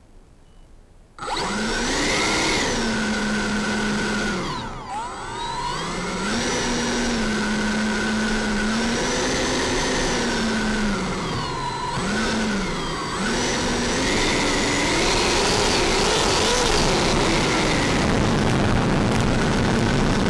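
Electric ducted-fan jet model's fan whining as it taxis, starting about a second in, its pitch sweeping down and back up with the throttle, dropping deepest about five seconds in and again near the middle.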